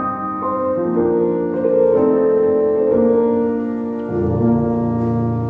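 Background music led by piano-like keyboard notes, with a deep bass note coming in about four seconds in.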